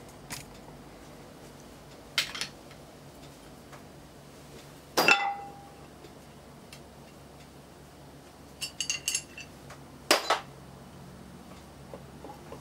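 Metal engine parts clinking and clanking as they are handled on the stripped engine block: separate sharp metallic knocks, the loudest about five seconds in with a brief ring, then a quick run of light clinks near the end.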